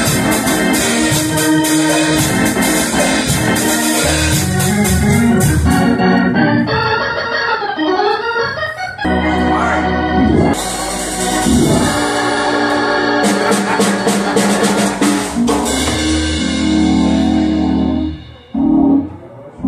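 Organ playing held chords over a moving bass line, with drum and cymbal strokes in the first part and again in the middle. The music drops away briefly near the end.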